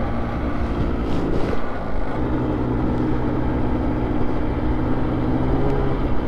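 Polaris SKS 146 snowmobile engine running as the sled rides along a packed snow trail. It is a steady drone that eases off briefly about two seconds in and then holds steady.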